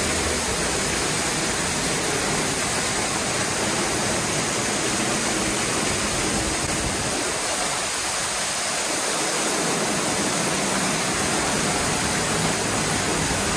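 Heavy tropical downpour: a steady, unbroken rush of pouring rain, with water gushing off the roof edge in streams and splashing below.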